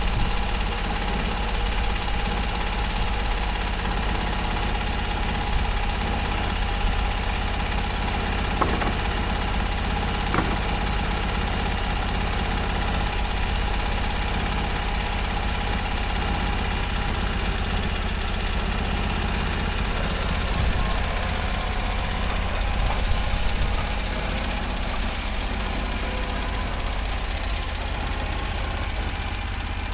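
Norwood HD38 portable sawmill's petrol engine running steadily, with a couple of faint ticks in the middle and a slight drop in level near the end.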